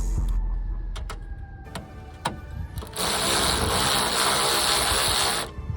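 A few light tool clicks and knocks, then about three seconds in a power wrench runs in one rattling burst of about two and a half seconds and stops sharply, spinning a bolt off the coilover strut.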